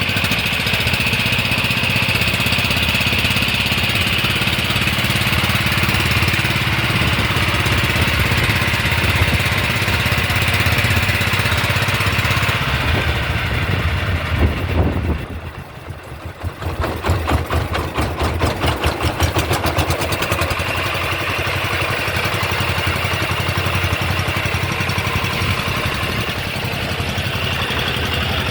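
An engine running steadily. About halfway through it drops away briefly to a slow pulsing, then picks up again.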